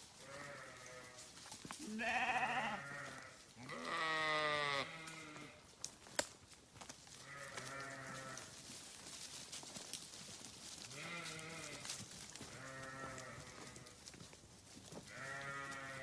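A flock of Zwartbles sheep bleating: about seven separate bleats from different animals, each around a second long, the two loudest and highest-pitched a few seconds in.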